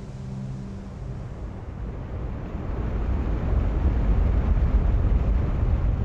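Surf rushing and churning, a deep rumbling wash of water that swells louder about two and a half seconds in and stays up. Held tones of background music fade out near the start.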